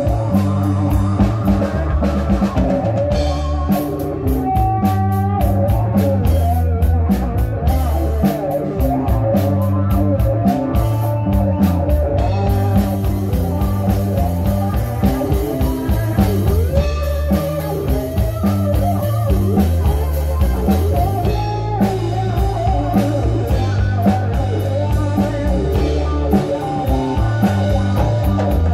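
Live blues-rock band playing: electric guitar, bass guitar, banjo and a drum kit keeping a steady beat.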